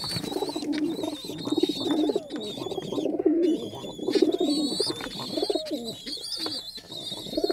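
A flock of domestic pigeons cooing continuously, many overlapping coos, with a thin, steady high whine in the background.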